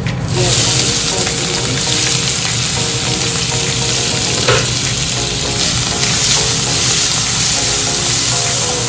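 Chopped onions sizzling loudly as they hit hot oil in an aluminium wok, with dried red chillies and fenugreek seeds, and are stirred with a wooden spatula. The sizzle starts suddenly, then holds steady.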